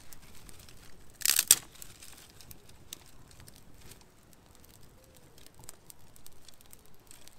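A bundle of thin dry twigs rustling and crunching as it is laid onto a small kindling fire, one short loud burst about a second in, with faint scattered crackles and twig clicks.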